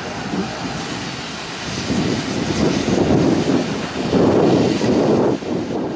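Narrow-gauge railway locomotive running at the station, a dense engine-and-exhaust noise that grows louder about two seconds in and eases off near the end.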